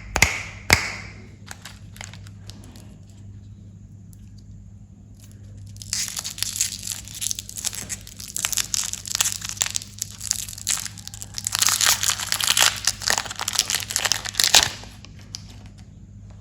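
Candy wrappers crinkling and tearing as candies are unwrapped: a few sharp clicks at the start, then dense crinkling from about six seconds in that stops near the end.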